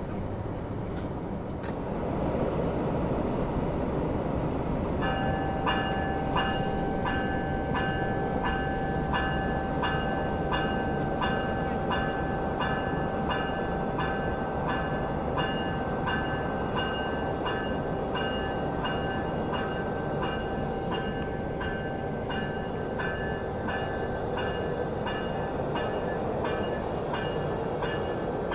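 The electronic bell of a VIA Rail Siemens Charger SCV-42 diesel locomotive rings steadily from about five seconds in, a little more than one strike per second. Under it is the rumble of the locomotive's diesel engine as the train approaches slowly along the platform.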